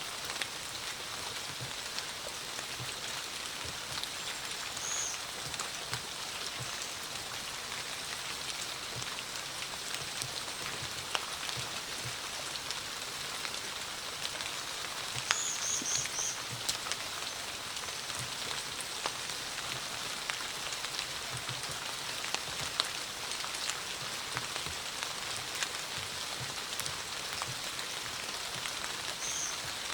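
Steady rain falling, a constant hiss with scattered individual drops tapping on surfaces. Short high chirps sound once about five seconds in, as a quick run of four about halfway through, and once more near the end.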